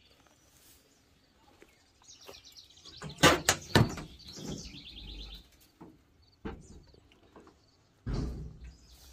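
Sharp metallic clicks and clanks of an old car's steel side hood panel being unlatched and lifted open, loudest about three seconds in, followed by a dull thump near the end. Birds chirp in the background.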